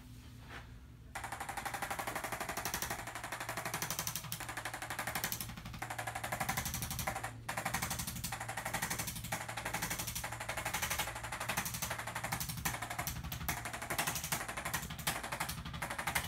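Motorised percussion massager hammering rapidly and steadily against the body, starting suddenly about a second in.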